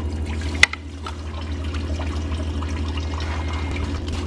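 Engine coolant pouring and trickling out of a freshly disconnected expansion-tank hose into a drain pan, with one sharp click about half a second in.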